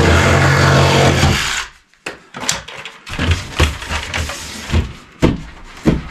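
Cordless drill running steadily for about a second and a half, working at a dryer vent fitting, then stopping. After it, a series of light knocks and clicks as the vent piece is handled and pressed into the wall opening.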